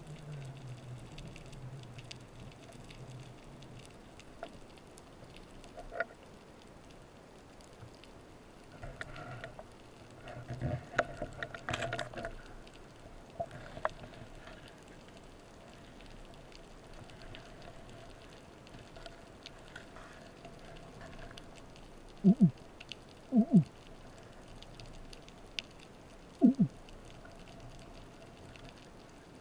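Underwater ambience with a steady faint crackle. Seagrass blades rustle against the camera about ten to twelve seconds in. Near the end come a few short, loud, low sounds that drop in pitch: two pairs a little after twenty seconds and one more a few seconds later.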